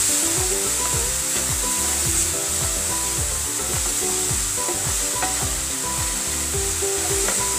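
Grated coconut sizzling in a frying pan as a wooden spatula stirs and scrapes through it. Background music with a steady beat plays throughout.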